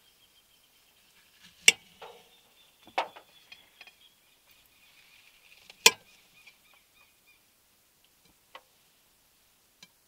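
A small knife slicing dragon fruit on a plate, the blade clicking sharply against the plate a handful of times, with two loud clicks about four seconds apart and softer ones near the end.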